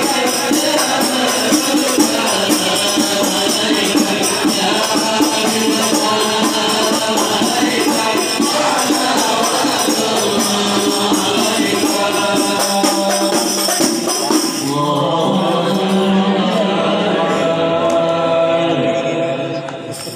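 A group of voices chanting devotional songs together, with a rhythmic jingling tambourine-like percussion. About fifteen seconds in the jingling stops while the chanting carries on, then it fades out at the very end.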